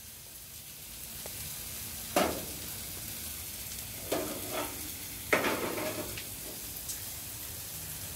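Meat sizzling on a barbecue grill, a steady hiss, with a few brief louder knocks about two, four and five seconds in.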